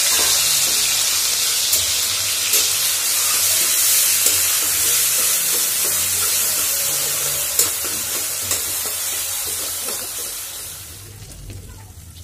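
Chopped onion sizzling in hot oil in an aluminium kadai, stirred with a steel spatula that clicks against the pan now and then. The sizzle dies down near the end.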